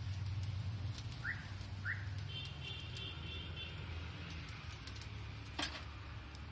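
Street background: a steady low hum, with two short rising chirps about a second in, a rapid trilling tone shortly after, and a single sharp click near the end.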